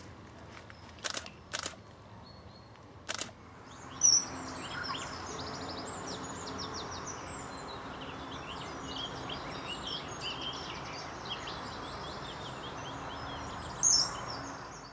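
A camera shutter clicking three times in the first few seconds. Then, from about four seconds in, many small birds chirping over a steady outdoor hiss, with a louder call near the end.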